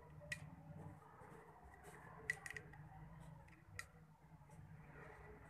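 Near silence with a few faint clicks and taps as a small spring is handled and fitted onto a homemade painted craft microphone.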